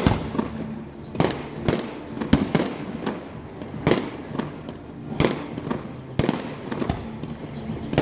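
Fireworks bursting overhead: a rapid, irregular string of sharp bangs, about one or two a second, each trailing off in an echo.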